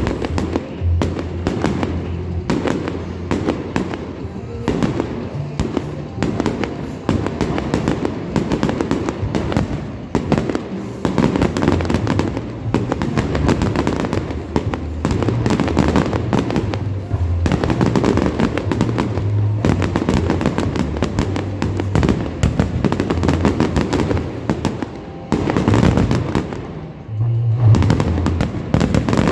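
Fireworks display: a dense barrage of loud bangs and crackles, with a short lull near the end, over Christmas-themed music played for the show.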